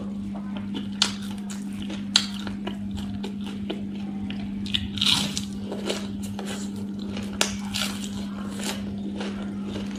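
Close-miked crunching and chewing of a crisp fried leafy vegetable fritter (bora), with sharp crunches about a second in, at two seconds, around five seconds and near seven and a half seconds. A steady low hum runs underneath.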